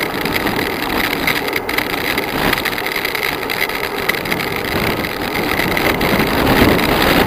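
Steady rush of wind buffeting the microphone of a bike-mounted camera on a fast bicycle descent, mixed with tyre noise on asphalt.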